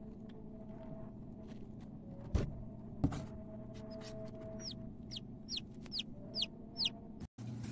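Newly hatched chick peeping: about six short, high peeps, each sliding downward, in the second half. Before them come two sharp knocks, the loudest sounds here, over a steady low hum.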